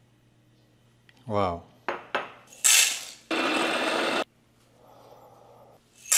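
Cups knocking and clattering on a counter, then a Fellow Opus electric conical burr coffee grinder runs for about a second and stops abruptly. A sharp click near the end as the grinder's grounds cup is handled.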